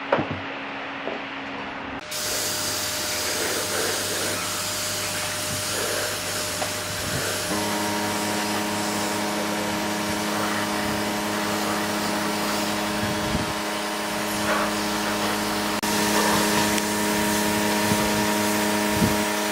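A workshop machine running steadily with a strong hiss. A steady motor hum joins it about seven seconds in.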